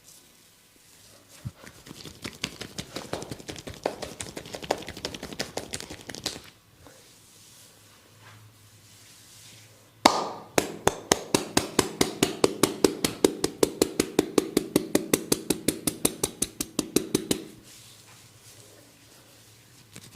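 Percussive massage strokes: a barber's hands striking the head or body in quick, even slaps, about six a second, for some seven seconds in the second half. Before that comes a softer, less even run of tapping.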